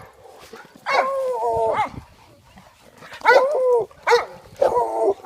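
A dog barking: one long, drawn-out bark about a second in, then a quick run of shorter barks near the end.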